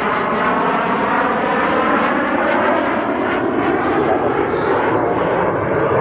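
BAC Strikemaster's single Rolls-Royce Viper turbojet running loud and steady as the jet passes overhead and heads away, its whine sagging slightly in pitch over the first few seconds.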